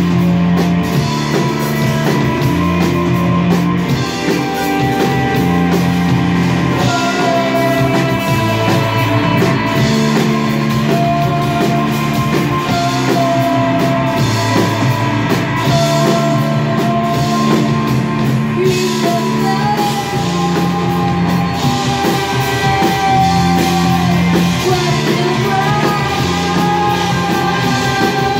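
Live rock band playing: a female singer over electric guitar, keyboard and drum kit, with the low notes stepping every couple of seconds.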